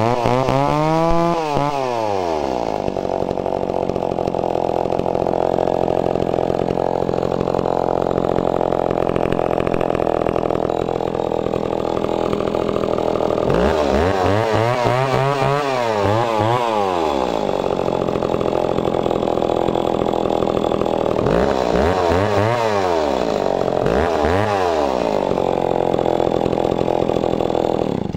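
Echo Kioritz CS452VL 44cc two-stroke chainsaw idling steadily, revved up and let back down to idle several times: once at the start, a few times in the middle, and twice near the end.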